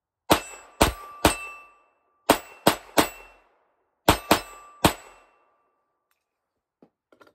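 Smith & Wesson Victory .22 LR semi-automatic pistol firing nine shots of Winchester Super X bulk ammunition in three quick strings of three, with a brief metallic ringing tone after some shots. A few faint clicks near the end.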